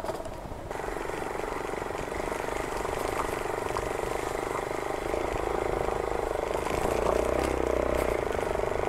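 Hero Xpulse 200's single-cylinder four-stroke engine running as the motorcycle rides along a rough dirt track, getting a little louder after the midpoint.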